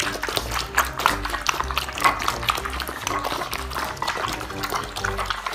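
Puppies eating out of bowls, making wet lapping and smacking clicks. Background music with a low bass line plays over it.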